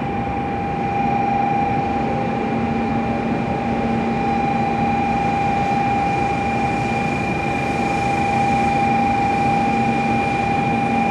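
Shinkansen bullet train standing at the platform: a steady electrical whine at one constant pitch over a low, even hum, with no rise or fall in pitch.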